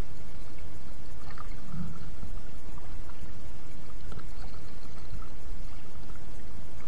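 Wind buffeting the microphone as a steady low rumble, with faint water lapping and trickling against an inflatable kayak.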